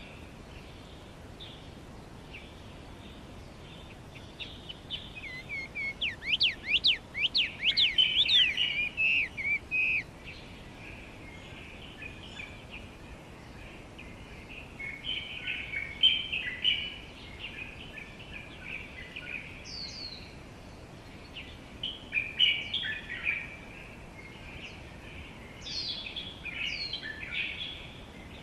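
Small songbirds singing and chirping in bursts over a steady low background hiss. The loudest phrase is a long, fast run of rapidly rising and falling whistled notes near the start; shorter chirping bursts follow later.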